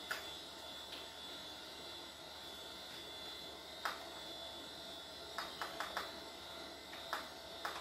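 Computer keyboard keys being pressed: a few separate clicks, then a quick run of several clicks about five and a half seconds in, as keys are tried to restart the Mac. Underneath runs a steady hum with a faint high whine.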